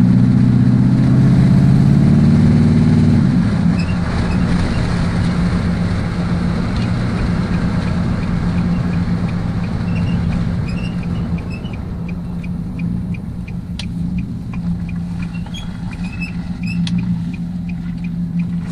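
Nissan Titan engine running, at higher revs for the first three seconds and then settling to a steady idle. From about four seconds on, faint short high-pitched squeaks come and go over the engine.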